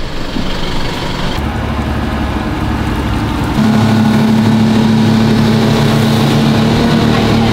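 Speedboat's twin outboard motors running at speed, a steady engine drone over the rush of water from the wake. The sound shifts abruptly about a second and a half in and gets louder about three and a half seconds in.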